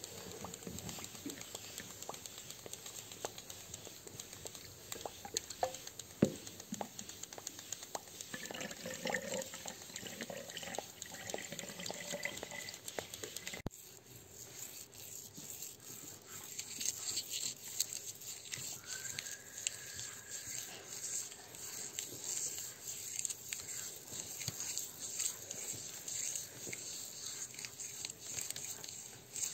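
Hand-made sound effects, classroom objects used to imitate water for an underwater scene, with scattered knocks and drip-like sounds. About halfway the sound breaks off for a moment. A different imitated nature sound follows: a steady hiss with a short whistle-like tone a few seconds later.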